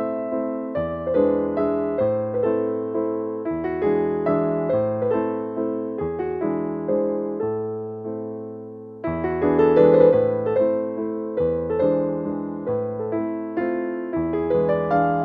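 Background piano music: a gentle melody of notes that strike and fade, over a low bass line that changes every second or two.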